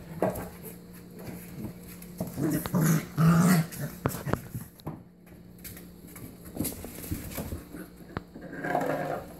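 5- to 6-week-old puppies play-fighting, giving small growls and whines, loudest about three seconds in and again near the end, with light clicks and scuffles from paws on the floor.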